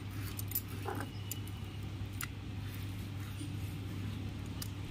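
Quiet scraping as a hand gathers ground poppy-seed paste off a stone grinding slab, with a few light clinks from the bangles on the wrist, over a steady low hum.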